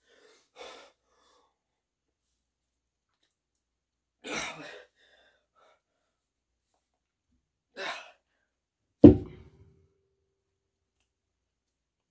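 Hard breaths during a set of dumbbell curls, three short exhales a few seconds apart, then a loud thud with a short metallic ring about nine seconds in as the plate-loaded dumbbells are set down on the floor.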